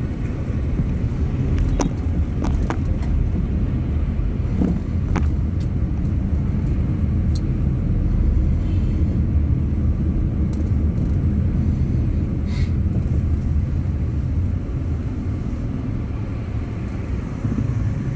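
Steady low rumble of road traffic, with a few short faint clicks scattered through it.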